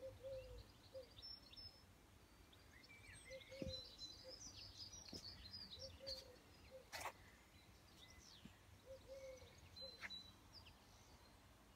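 Faint outdoor birdsong: several birds chirping and whistling, with a low call repeating every second or so.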